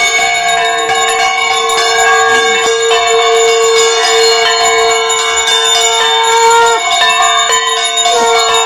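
Puja bells ringing on and on, several steady bell tones sounding over each other, with the lowest tone breaking off briefly about seven seconds in.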